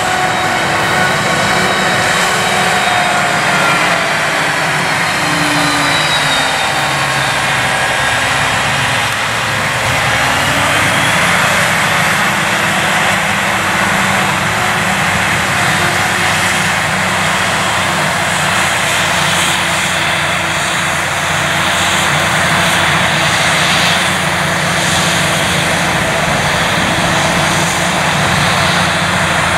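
Claas Jaguar 980 forage harvester running under load while chopping maize: a steady engine and chopper drone with a hiss of crop blown through the spout, shifting slowly in pitch a few times in the first half.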